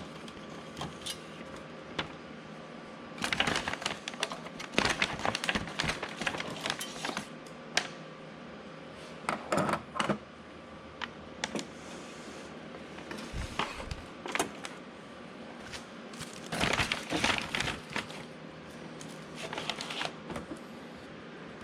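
Scattered clicks, clinks and rattles of small metal parts being handled as the screwed-on lower guard of a copier's fuser unit is taken off, in several short clusters. A faint steady hum runs underneath.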